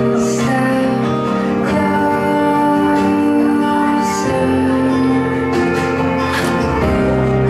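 Background music: held chords with plucked guitar-like notes.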